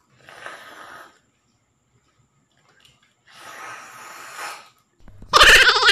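Slurping twice as balut broth is sipped from the shell, each slurp about a second long. Near the end a sudden loud, wavering cry cuts in.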